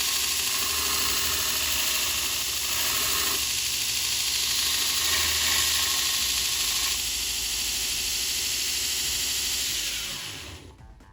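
Angle grinder grinding metal with a steady, loud hiss, then switched off and spinning down about ten seconds in.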